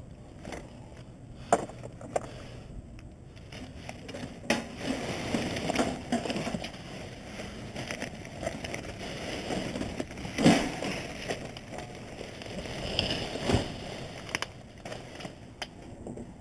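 Garbage being rummaged through in a dumpster: plastic garbage bags rustling and crinkling, with scattered knocks and clatters as boxes and a plastic crate are shifted. The loudest knock comes about ten seconds in.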